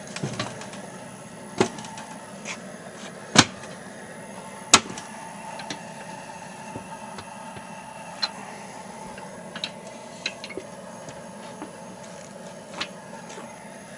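Sharp metal clicks and knocks from the steel door of a smoker cooking chamber made from a propane tank being closed and handled. Two louder knocks come about three and a half and five seconds in, with lighter clicks scattered after, over a faint steady background.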